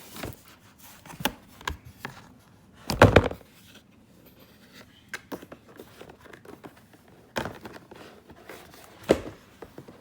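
Handling noise from unpacking a folded photo light box and its packaging: irregular knocks, clicks and rustles. The loudest is a scraping, crinkling burst about three seconds in, and there is a sharp knock near the end.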